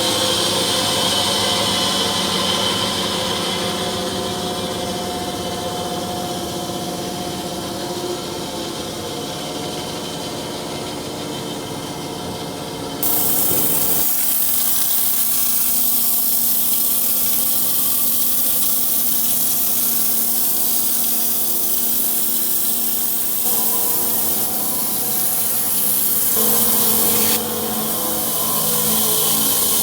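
Sawmill blade cutting through a turkey oak log: a steady machine drone under a loud hiss of the blade in the wood. The sound shifts abruptly about halfway through and changes again near the end.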